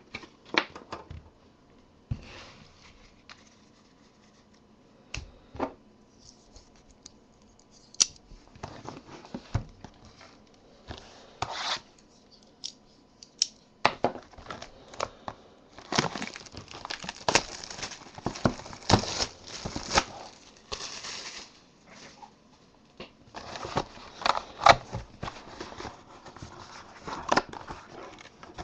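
Plastic wrapping being torn and crinkled as a sealed box of trading cards and its packs are opened by hand: scattered clicks and short rustles at first, then longer stretches of crinkling about halfway through and again near the end.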